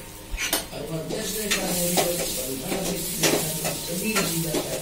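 Plastic instant-noodle packet crinkling as it is handled and turned in the hand, with irregular sharp crackles over a steady rustle.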